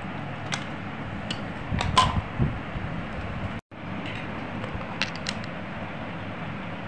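Steady fan-like background noise, with a few light clinks, the loudest about two seconds in. The sound drops out for an instant about halfway through.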